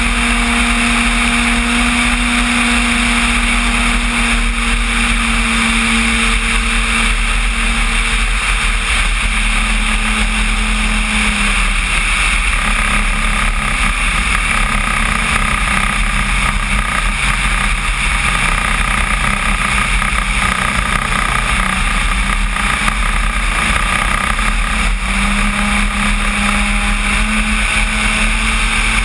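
Onboard sound of a large RC Cessna 185 float plane's electric motor and propeller in flight, a steady drone over the rush of air. The pitch drops about a third of the way in and climbs back near the end.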